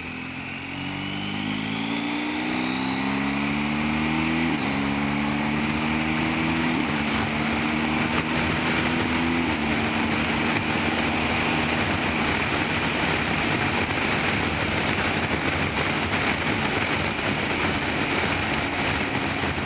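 BMW R1250GS Adventure's boxer twin accelerating hard through the gears: its pitch climbs and drops back at three upshifts in the first ten seconds, then holds steady at cruising speed. Wind rush grows until it covers the engine.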